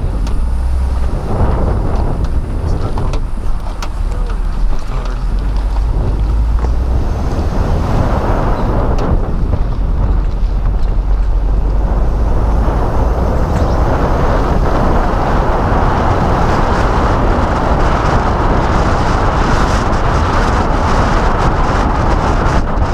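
Car driving on a rough, cracked and cobbled road: a steady rumble of tyres and road noise mixed with wind noise, which gets louder and hissier around the middle.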